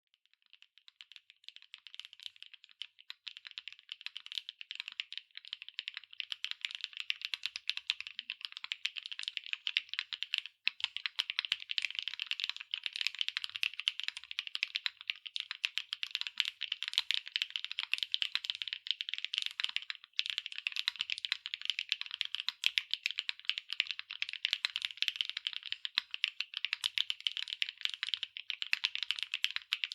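Fast typing on a JRIS65 R2 mechanical keyboard with HMX Glaze Jade linear switches, an aluminium plate and PBT double-shot keycaps: a dense stream of keystroke clacks. It starts sparse, picks up to a fast steady pace within the first few seconds, and has two brief pauses, about a third and two-thirds of the way through.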